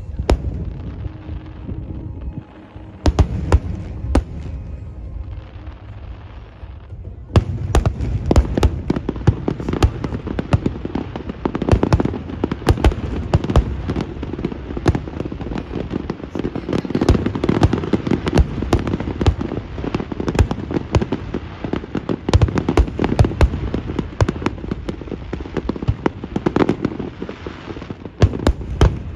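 Aerial fireworks shells bursting: scattered bangs for the first several seconds, then from about seven seconds in a dense barrage of rapid bangs that keeps up without a break.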